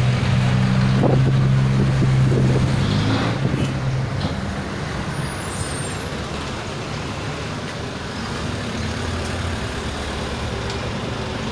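Road traffic: a motor vehicle's engine hum is loudest over the first four seconds, then eases into a steady traffic drone.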